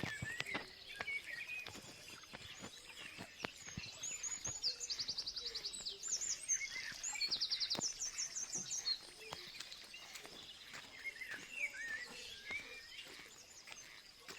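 Several birds singing: scattered chirps and short whistles, with two fast trills of rapidly repeated high notes in the middle that are the loudest part. Faint scattered clicks run underneath.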